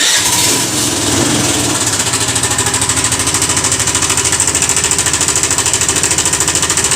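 Hero Pleasure Plus BS6 scooter's single-cylinder engine catching on the electric self-starter, then idling with a fast, even clattering pulse. The owner takes the noise for a timing chain problem or a faulty cam chain tensioner (adjuster).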